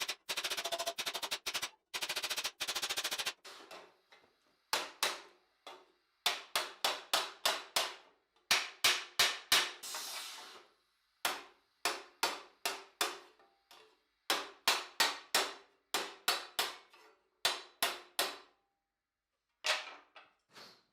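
Hammer blows on sheet steel armour plate: a fast run of light blows for the first few seconds, then separate ringing strokes about three a second, in groups with short pauses.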